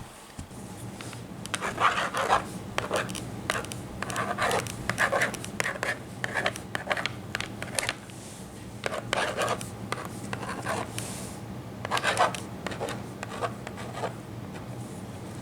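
Irregular scratchy strokes of a drawing tool scribbling across a surface, in clusters with short pauses between them. A faint steady low hum lies underneath.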